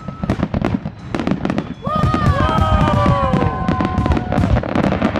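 Fireworks finale: a dense run of sharp bursts, several a second. From about two seconds in, several long falling tones sound over the bursts for two to three seconds.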